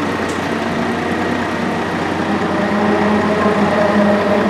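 Porsche 996 GT3 RSR's 3.6-litre flat-six racing engine idling steadily, getting slightly louder near the end.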